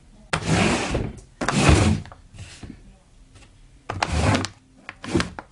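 Cardboard firework cake boxes being handled on a table: several short thumps and scrapes as the boxes are picked up, slid and set down.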